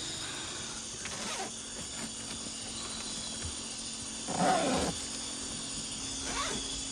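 Evening insect chorus: several high, shrill tones held steadily over a faint low hum. Short rustling bursts break in about a second in, halfway through (the loudest) and near the end.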